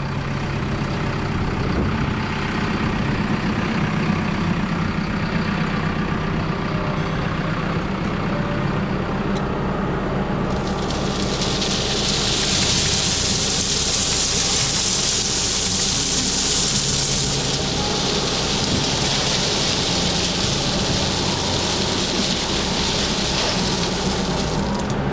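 Diesel engine of a bucket machine running steadily as it works ballast. A loud, even hiss starts abruptly about ten seconds in and cuts off at the very end.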